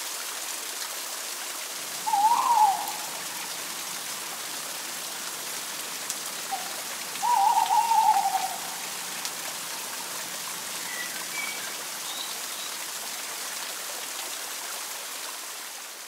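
Steady hiss of a running forest stream, with two wavering owl calls about two and seven seconds in, and a few faint high chirps later on. The ambience fades out at the end.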